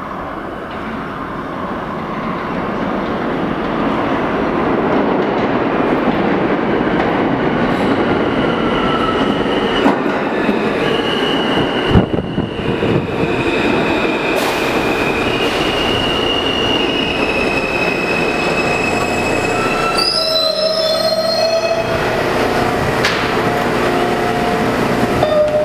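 New York City Subway R160A train pulling into an underground station: a rumble that builds as it approaches, then runs past with high wheel and brake squeals. The squeals change sharply about twenty seconds in as the train comes to a stop.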